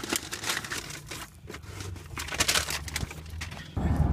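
Close, irregular crinkling and rustling, like paper or packaging being handled right by the microphone. Near the end, a louder steady low rumble comes in.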